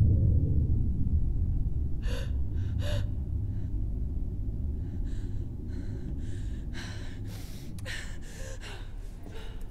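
A frightened woman gasping and panting: a few sharp breaths from about two seconds in, coming quicker near the end. Underneath, a deep rumbling drone slowly fades away.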